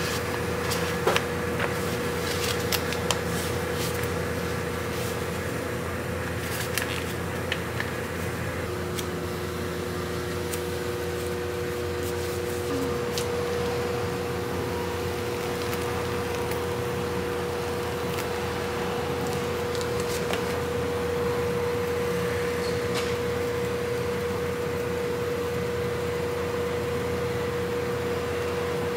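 Steady electrical hum of kitchen machinery, like a fan or refrigeration unit, with a faint steady whine; a second, lower whine joins about a third of the way in. A few light clicks and taps from handling in the first several seconds.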